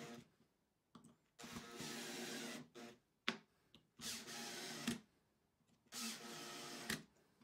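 Makita cordless drill driving screws into wood: three short runs of the motor's whine, each about a second long, with sharp clicks between them.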